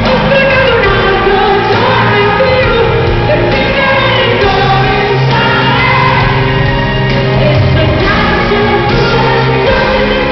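Live pop band playing in a large hall, with a woman singing lead into a microphone over long held bass notes and keyboards.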